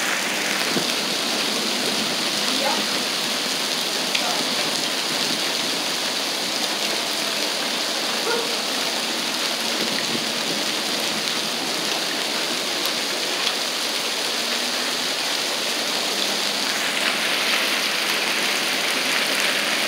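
Hail and heavy rain pouring down onto asphalt, a steady dense hiss with a few sharper ticks of hailstones striking. It turns a little brighter and hissier about three-quarters of the way through.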